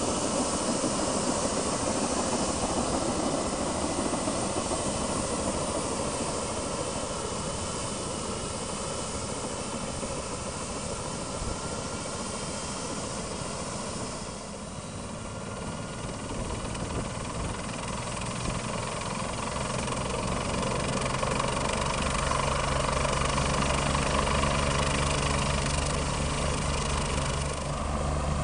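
MBB-Kawasaki BK 117 helicopter's twin turbine engines running on the ground with the main rotor turning: a steady turbine hiss and whine. In the second half a low, rhythmic rotor beat grows louder.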